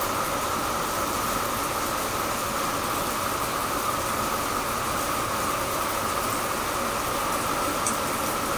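Steady rain falling on a tiled terrace and potted plants: an even hiss with no breaks.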